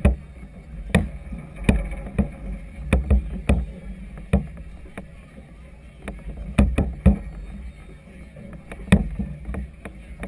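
Choppy river water slapping against the hull of a moored floating clubhouse: irregular sharp knocks, about one or two a second, over a steady low rumble of wind.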